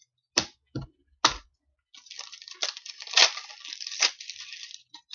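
Trading cards handled on a table: three quick taps as cards are set down, then a few seconds of crackling rustle as cards and their packaging are handled.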